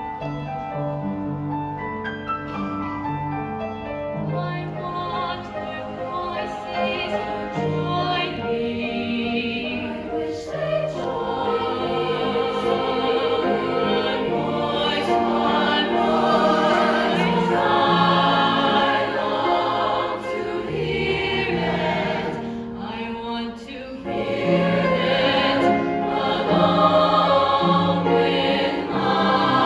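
A choir singing in many sustained parts, building louder about ten seconds in, easing briefly near the three-quarter mark, then swelling again.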